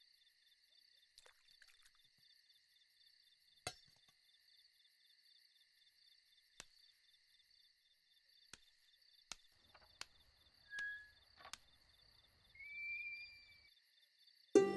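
Crickets chirping steadily in a night-time ambience, with a few faint scattered clicks and a brief whistle-like call about two seconds before the end. Background music starts abruptly at the very end.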